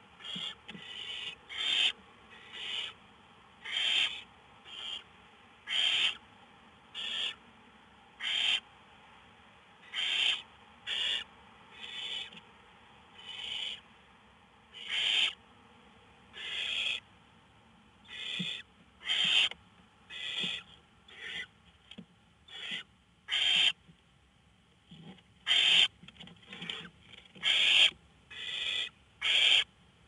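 Barn owl nestlings giving repeated hissing 'snore' calls, the food-begging call of barn owl chicks. Short rasping hisses come about once a second in an uneven series, with more than one chick calling.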